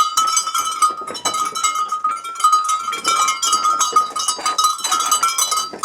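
Bells on a herd of goats ringing and jangling without a break, a steady clear tone with higher overtones, over many small knocks and rustles from the goats moving and feeding.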